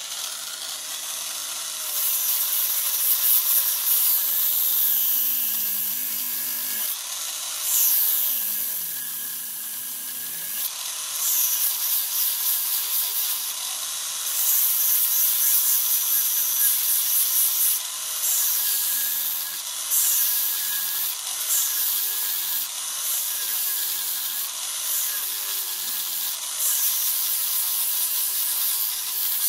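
Electric wood carving machine (Tokyo Automac Handcraft Deluxe HCT-30S) switched on and run in rotary mode, its sander wheel grinding the face of a Japanese yew block. A hissy abrasive rasp that swells and eases every few seconds as the wheel is pressed on and eased off, with the motor's whine wavering under the load.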